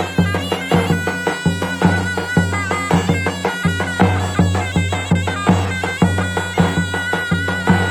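Davul and zurna playing Turkish folk music: the shrill, nasal reed melody of the zurna over a steady, fast beat on the davul bass drum.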